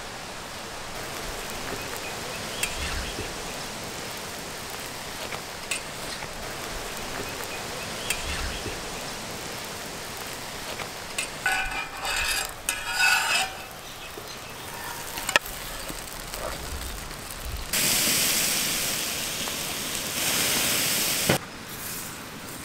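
Egg-roll batter sizzling on a large metal griddle over a wood fire, with a few brief spatula scrapes and clicks. There is a short run of louder sounds about halfway through, and near the end a much louder hiss of sizzling lasts about three seconds.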